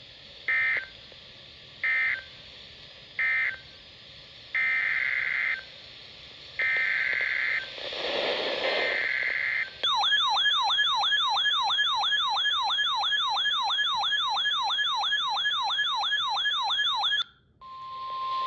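Emergency Alert System signalling: three short screeching SAME data bursts marking the end of one alert, then three longer SAME header bursts for the next alert. They are followed by a fast warbling siren-like attention tone, about three or four sweeps a second for some seven seconds, which cuts off. After a brief gap a steady single alarm tone begins.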